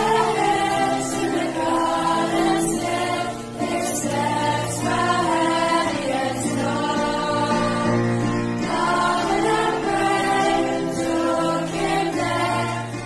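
A school choir of young voices singing together, accompanied by piano.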